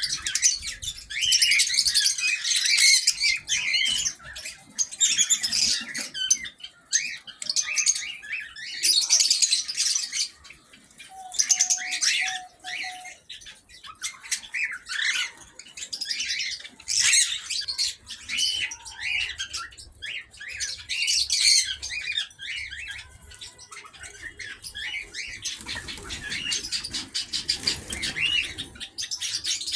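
A flock of small pet birds in an aviary chirping and chattering, many calls overlapping with hardly a pause.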